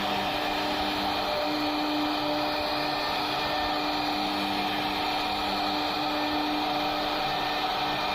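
CNC router spindle running steadily while cutting a wood door panel: a continuous motor whine with a few tones that drop in and out as the cut goes on.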